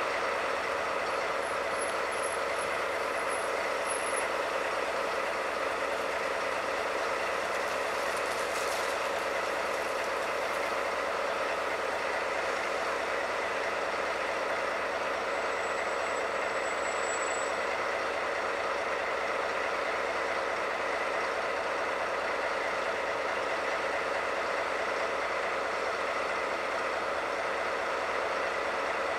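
Steady mechanical hum of JR Freight EF210 electric freight locomotives at a standstill or moving slowly, with no rise or fall in pitch. A brief hiss comes about eight seconds in.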